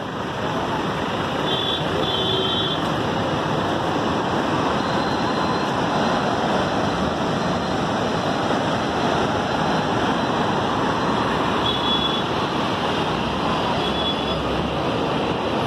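Steady, loud rushing of floodwater pouring through the open spillway gates of Srisailam Dam and churning in the river below.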